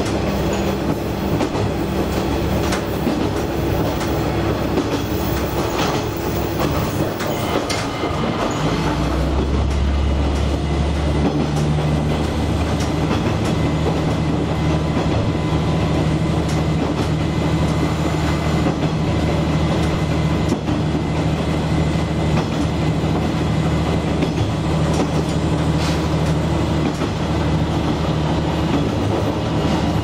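Diesel railcar running along the line, heard from the driver's cab: a steady engine drone with the wheels clicking over rail joints. About 8 to 9 seconds in, the engine note shifts and grows deeper.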